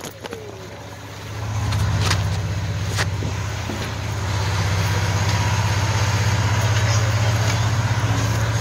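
A low, steady motor rumble that comes up about a second and a half in and holds, like an engine idling.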